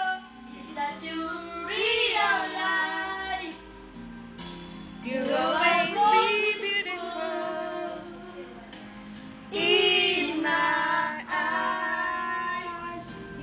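A child singing karaoke into a handheld microphone over a backing track, in several sung phrases with short pauses between them where the backing music carries on.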